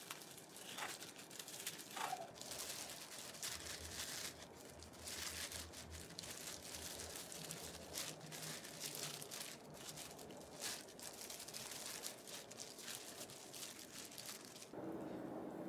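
Disposable plastic gloves crinkling and rustling as hands handle and press gimbap pieces, with a few knife cuts through the rolls on a wooden cutting board in the first couple of seconds.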